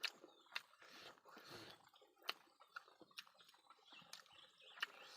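Close-up mouth sounds of someone eating fish: wet chewing and lip-smacking with irregular sharp clicks.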